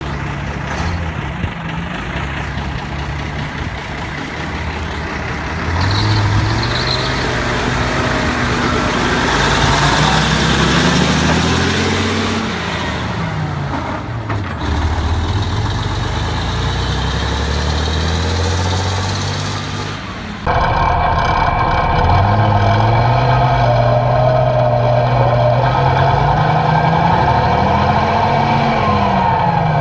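1942 Diamond T 980 wrecker's Hercules six-cylinder diesel engine pulling away under load, its pitch climbing and dropping as it runs up through the gears. From about two-thirds in it is heard close from on board, louder, with a steady higher whine alongside the engine revving up and falling back again.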